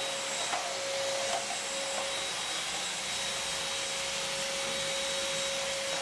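Redmond RV-UR356 cordless stick vacuum running steadily with its turbo brush on a tiled floor: an even rush of air with a steady whine.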